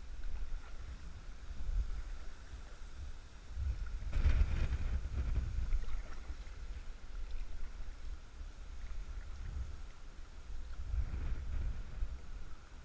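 Kayak paddling on a river: paddle and water splashing over a low rumble of wind on the action-camera microphone. It swells louder about four seconds in and again near the end.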